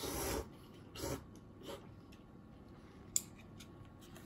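Handling noise: a few short scraping and rustling sounds as a phone camera and a foam instant-ramen cup are moved on a wooden table, with one sharp click a little after three seconds in.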